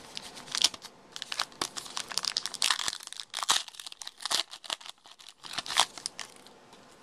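Plastic trading-card pack wrapper being torn open and crinkled by hand, a quick run of sharp crackles and rustles that stops about six seconds in.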